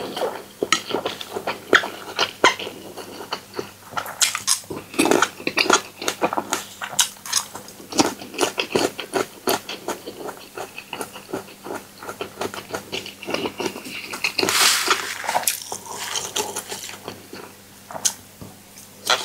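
Utensils clicking and clinking against a bowl as the noodle salad is tossed, in an irregular run of small knocks. A brief, brighter swishing rush comes about fifteen seconds in.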